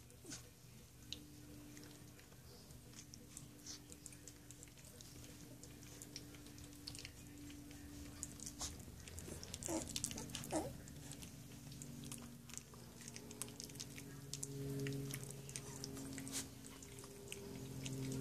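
Three-week-old golden retriever puppies mouthing and suckling: many small wet smacking and clicking sounds. Two short squeaks come about ten seconds in, over a faint low hum.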